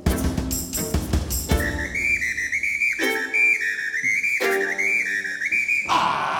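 Comic string-quartet music: a few drum strokes from a suitcase beaten with a bass-drum pedal, then a high, wavering whistle melody played on a small mouth-held instrument over violin chords, and a loud vocal shout with the strings near the end.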